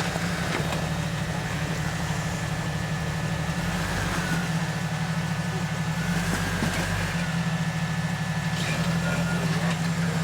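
Off-road 4x4's engine running at low speed with a steady throb, its note deepening under load about four seconds in and again between six and seven seconds.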